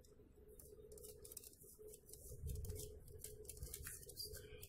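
Cheese being grated on a metal box grater: faint, quick rasping strokes, about two to three a second.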